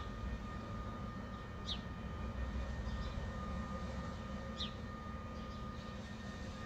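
Steady low industrial hum and drone from a factory's plant, with faint steady whining tones riding above it; this is the buzzing, humming noise nuisance neighbours complain of. Short high chirps cut through it twice, a little under two seconds in and again past four and a half seconds.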